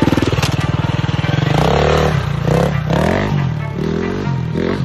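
Dirt bike engine revving up and down several times, its pitch rising and falling with each blip of the throttle while the bike is ridden on its back wheel.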